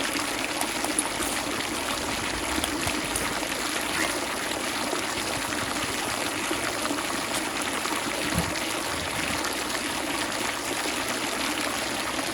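Steady noise of running water, even and continuous without a break.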